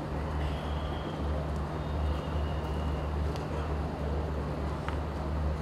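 Steady low hum of a hall's sound system or ventilation under an indistinct murmur of many voices, with a couple of faint clicks.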